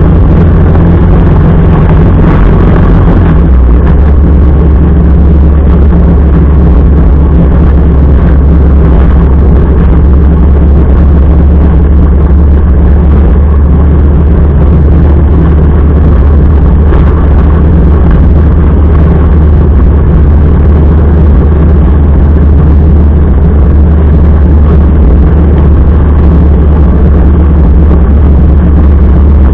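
Motorcycle engine running steadily while riding, loud and close. Its low note drops slightly about three seconds in, then holds steady.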